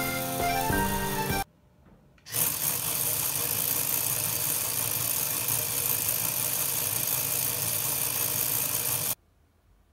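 Music, cut off about a second and a half in; then, after a short gap, a LEGO Technic freewheel mechanism driven by a tread-link chain runs with a steady, even mechanical whirr, built to give a bicycle freewheel sound. It stops abruptly near the end.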